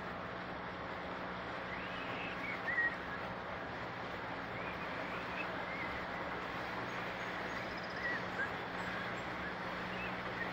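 Boat engine running with a steady low hum over the rush of water, while a bird chirps briefly several times, loudest about three seconds in and again about eight seconds in.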